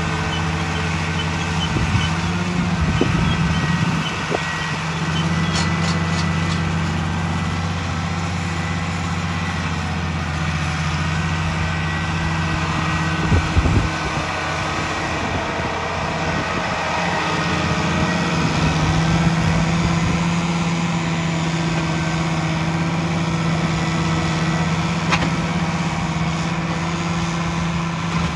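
International Harvester 1486 tractor's turbocharged six-cylinder diesel running steadily under load as it pulls a six-row planter past. The engine note wavers briefly twice, and there is a brief loud thump about halfway through.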